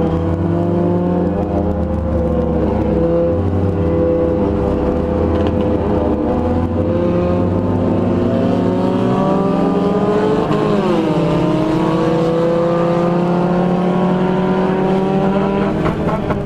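Dodge Neon's four-cylinder engine running hard in a race, heard from inside the car: its pitch climbs slowly, drops sharply about ten seconds in as the throttle is lifted, then climbs again.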